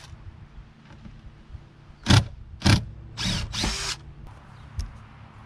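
Cordless power drill run in two short bursts and then a longer one of about a second, backing out the mounting bolts of a boat seat.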